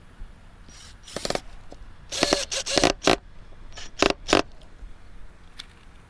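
Cordless drill boring a pilot hole into pallet-wood boards of a beehive box, run in several short trigger bursts with its motor whining up each time.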